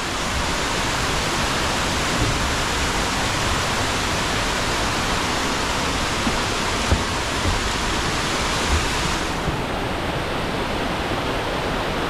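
Varone waterfall pouring, a steady rush of falling water; the hiss turns a little duller about nine seconds in. A couple of low bumps stand out briefly over it.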